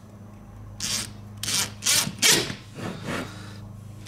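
Cordless impact driver run in about five short bursts, driving small screws into thin titanium armor panels on a combat robot.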